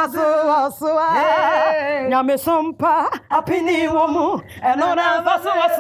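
Singing: held notes that waver in pitch, in short phrases with brief breaks.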